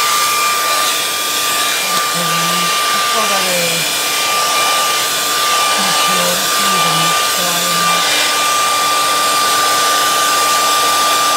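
Hair dryer running steadily: a loud, even rush of blown air with a steady high whine from its motor.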